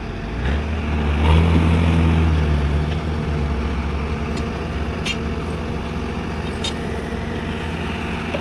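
Heavy diesel machinery engine running, its low drone swelling under load for the first few seconds and then settling to a steady run, with a few short sharp clicks in the second half.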